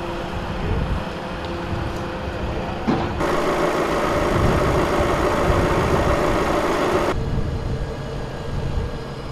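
Outdoor field sound of wind rumbling on the microphone under a steady hum. From about three seconds in to about seven seconds in there is a louder even hiss that starts and stops abruptly.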